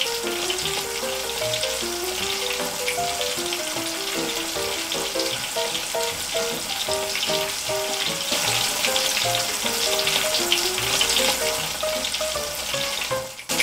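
Battered sweet potato pieces deep-frying in hot oil, a steady sizzle with fine crackling. A simple background music melody plays along.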